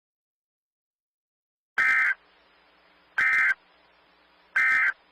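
Emergency Alert System end-of-message data bursts from a NOAA Weather Radio broadcast: three short, raspy digital chirps, evenly spaced, starting about two seconds in.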